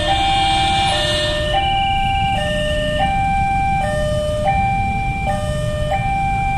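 Railway level-crossing warning alarm sounding an electronic two-tone hi-lo, switching pitch about every three-quarters of a second, over a steady low rumble.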